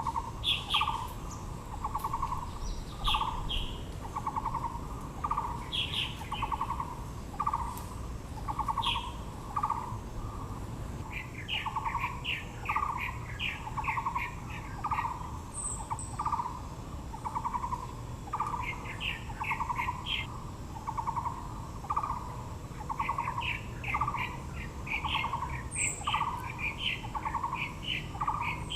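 Wild birds calling. One bird repeats a short, rolling low note about once a second, while others add quick runs of higher chirps, busiest in the second half.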